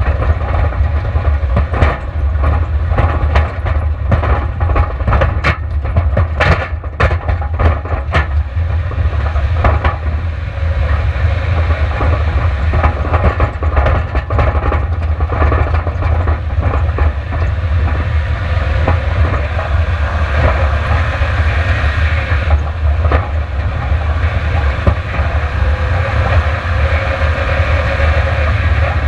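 Onboard sound of a long-travel Subaru Outback driving hard over a rough, rocky dirt trail: a steady loud low rumble with constant rattling and clattering from the car as it bounces over the rocks. A run of sharp knocks comes between about six and eight seconds in.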